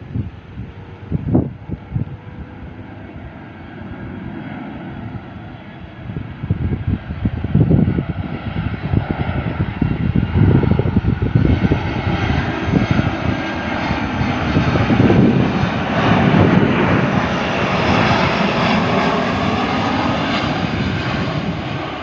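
Citilink airliner's engines growing louder as it passes close on its landing approach, loudest in the second half. Wind buffets the microphone with low thumps throughout.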